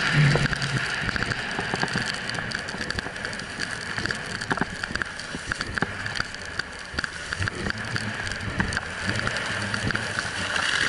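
Snowboard sliding and turning on snow, a steady scraping hiss with many small clicks and knocks, mixed with wind rushing over the pole-mounted action camera's microphone.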